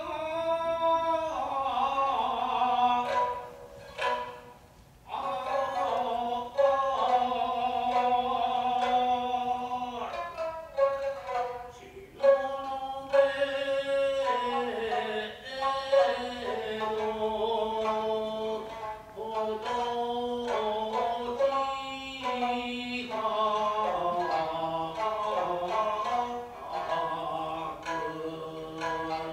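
Gidayū-style narrative chanting for the puppet play: a chanter's long, drawn-out sung lines, with sharp plucked shamisen notes breaking in now and then.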